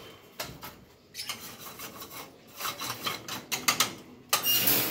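Scraping and clattering of a wire bird cage being handled as its water and feed containers are taken out: irregular rubbing scrapes and clicks, with a louder scrape near the end.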